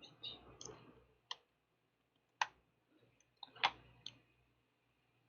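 Faint, irregular clicks from working a computer's mouse and keys: a few soft ones in the first second, then single sharp clicks at uneven gaps, the loudest about two and a half and three and a half seconds in.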